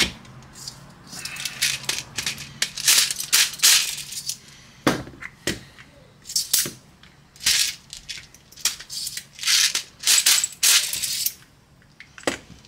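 BBs being loaded into an airsoft pistol magazine: clusters of small clicks and rattles as the BBs and magazine are handled, with two sharper single clacks around five seconds in.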